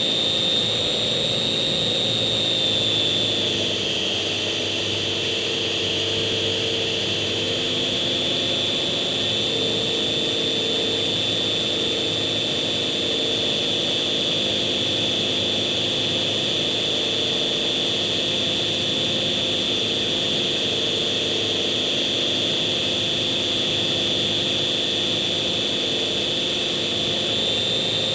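Electric motor and propeller of a GWS Slow Stick RC plane running steadily in flight: a high whine that dips slightly in pitch about four seconds in, then holds steady.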